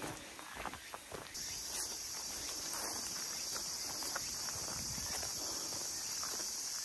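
A hiker's footsteps along a trail; about a second in, a steady high-pitched insect buzz starts abruptly and carries on over the steps.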